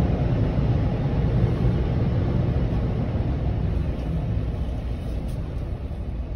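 Steady low rumble heard from inside a car as it leaves a car wash, fading slowly over the last few seconds.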